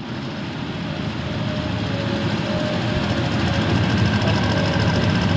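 Nut chopping machine running with its inclined belt conveyor, giving a steady mechanical noise that grows slowly louder.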